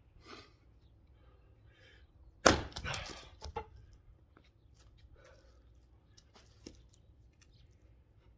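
An axe strikes a log once, followed by about a second of wood cracking and splintering as the log splits. A faint click comes a few seconds later.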